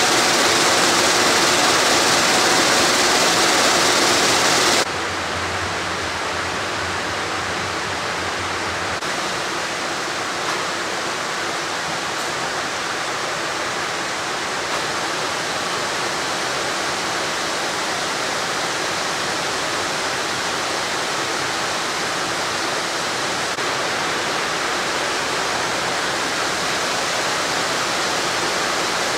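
Steady mechanical noise of yarn-winding machinery in a factory hall. It drops to a quieter level about five seconds in.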